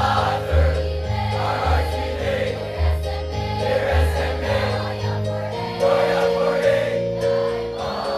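Large mixed choir of students singing a school alma mater hymn, over held low notes that change about once a second.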